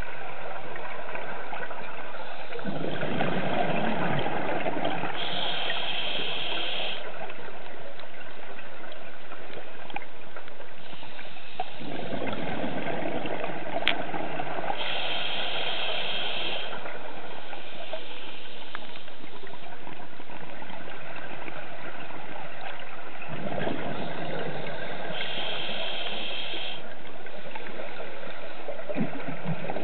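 Scuba diver breathing through a regulator underwater, about one breath every ten seconds. Each breath is a burst of bubbling exhaled air followed by a short high hiss as air is drawn through the regulator, three times over.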